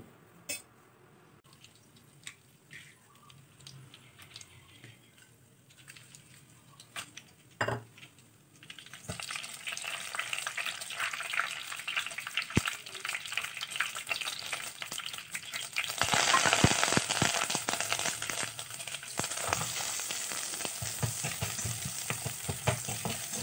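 Sesame oil in a kadai, quiet at first with a few faint clicks. About nine seconds in, dry red chillies hit the hot oil and it starts to sizzle and crackle steadily. From about two-thirds in the sizzling is louder and denser as small onions and curry leaves fry and are stirred with a spatula.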